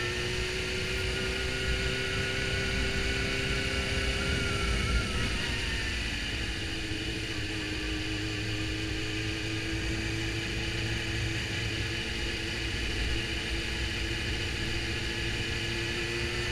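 Suzuki GSX-R750 inline-four engine running under way, heard from the rider's helmet camera over wind and road rumble. The engine note climbs gently, drops about five seconds in, then holds steady while cruising.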